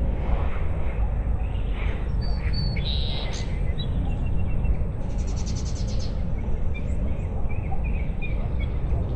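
Several birds chirping and calling over a steady low wind rumble. About five seconds in, a fast high trill lasts for about a second.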